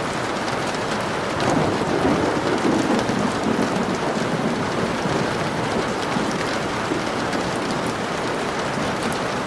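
Steady rain falling, with a low rumble of thunder swelling from about a second and a half in and fading by about four seconds.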